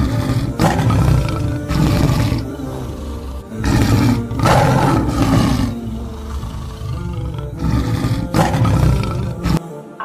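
Male lion roaring several times in deep, rough roars, the longest near the middle, over background music. The roars cut off just before the end.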